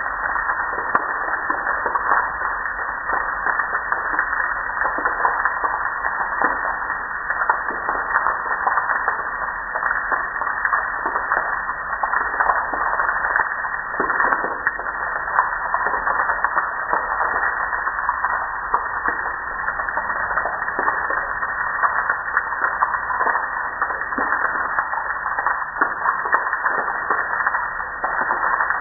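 Water spray striking a window and stone wall: a steady hiss of splashing, with many small splatters throughout.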